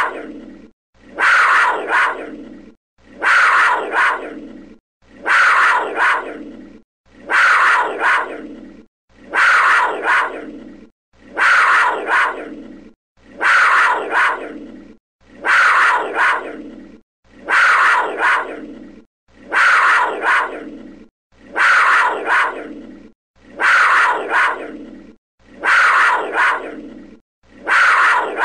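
Panther snarling: the same short recorded snarl looped about every two seconds, each one starting loud and fading away before a brief silent break.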